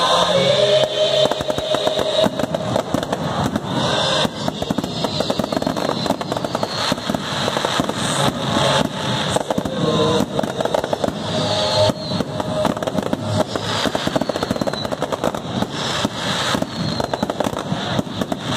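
Fireworks display: a dense, continuous barrage of bangs and crackling from many shells bursting at once.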